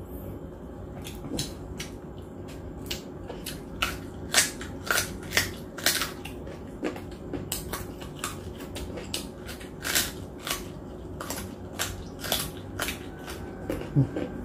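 Close-miked chewing of crispy roast pig skin (lechon): irregular sharp crunches, with the loudest crunches from about four to six seconds in and again around ten seconds.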